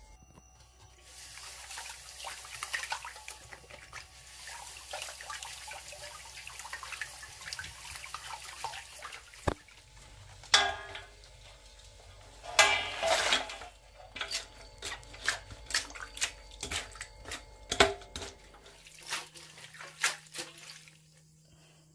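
Brine being stirred by hand in a stainless-steel bowl to dissolve the salt, a steady swishing of water. From about halfway there is a run of splashes, roughly one a second, as sweet potato stems are pushed down and worked in the salt water.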